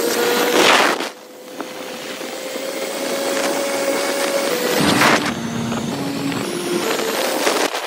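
Motorcycle running at road speed with wind rushing over the microphone. The wind surges hard about a second in and again about five seconds in. The engine's note holds fairly steady, then steps down and back up in pitch in the second half.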